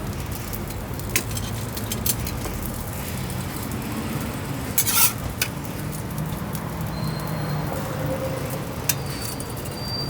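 Street food stall cooking noise: a steady low rumble with scattered sharp clicks and a short hiss about halfway through.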